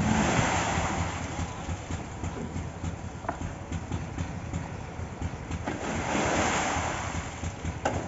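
Wet concrete tipped from a wheelbarrow slides down a wooden chute into the foundation pit, making a rushing swoosh. The swoosh comes twice: at the start and again about six seconds in.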